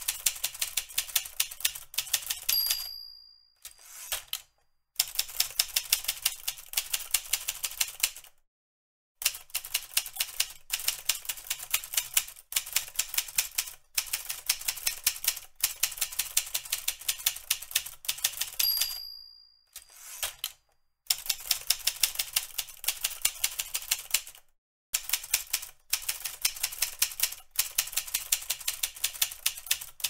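Manual typewriter typing in quick runs of sharp key strikes, with short pauses between runs. The end-of-line bell rings twice, once about two and a half seconds in and again about eighteen and a half seconds in. Each ring is followed a moment later by the carriage being returned.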